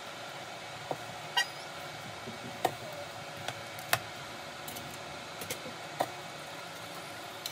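Metal kitchen tongs clicking and clacking against a cooking pot and a pressure cooker's basket as oxtail pieces are lifted across, about six sharp clicks, one with a brief metallic ring, over a steady background hiss.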